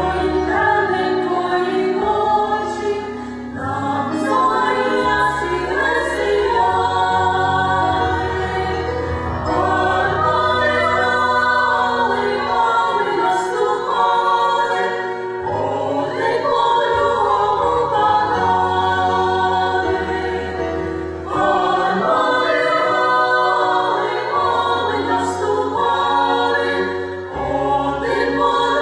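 Mixed choir of men's and women's voices singing in parts, phrase after phrase with short breaks between them.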